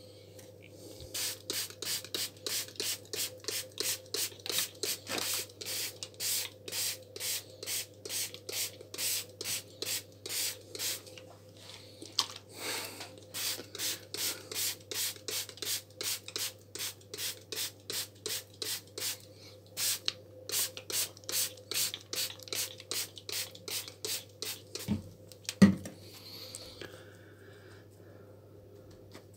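A hand-pumped trigger spray bottle, a room-spray bottle refilled with water, misting water onto potting soil in many quick squirts, with a short pause about halfway. A single knock near the end.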